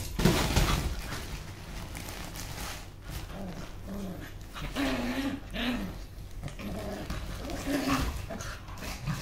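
A toy poodle and a mongrel dog play-fighting, with several short low growls and whines through the middle and near the end, and bedding rustling under them at the start.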